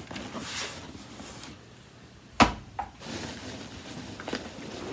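Handling noise from unpacking vacuum cleaner parts: rustling of packaging, with one sharp knock about halfway through and a smaller click just after it.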